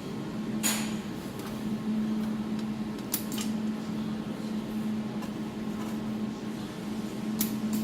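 Jewelry laser welding machine running with a steady hum, with three sharp clicks spread across the few seconds.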